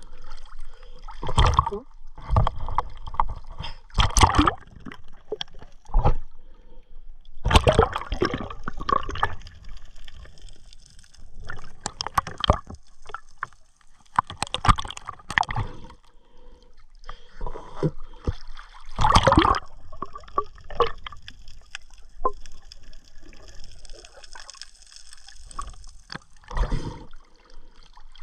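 Water sloshing and gurgling around a swimmer moving in the sea, in irregular surges every few seconds.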